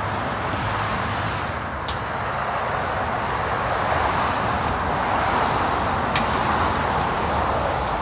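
Road traffic passing on the adjacent road: a steady rush of tyres and engines that swells in the middle and eases off, with a sharp click about six seconds in.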